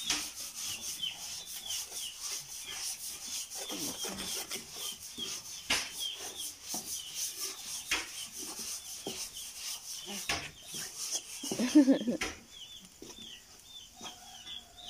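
A wooden spatula scraping and stirring thick refried black beans in a large metal pan over a wood fire, in repeated strokes over a steady frying hiss, as the beans are turned and cooked down to a paste. A short louder sound comes near the end.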